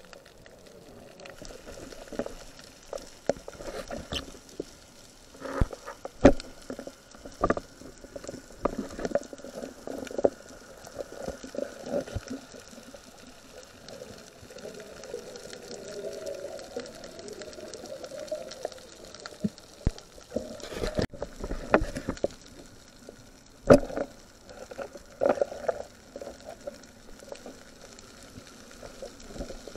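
Underwater sound from a spearfisher's camera: irregular muffled knocks and clicks from handling the speargun, spear and torch, a few of them sharper, over a low water hiss.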